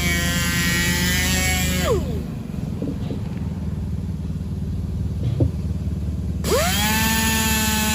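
Handheld rotary sander running on an alloy wheel, winding down about two seconds in and spinning back up about three-quarters of the way through. A steady low hum runs underneath, with a couple of light knocks while the sander is stopped.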